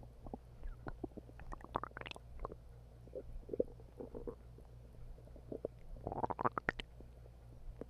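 Human stomach growling: a run of wet gurgles and pops, with a rising gurgle about two seconds in and the loudest burst of gurgling about six seconds in.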